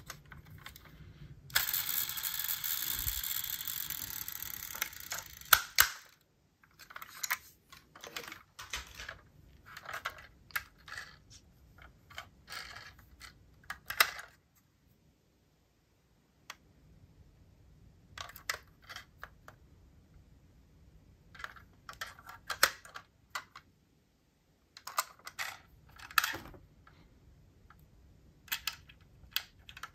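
Die-cast toy cars being handled: scattered small hard clicks and clacks. A few seconds of steady rushing noise comes a couple of seconds in and stops with a sharp click.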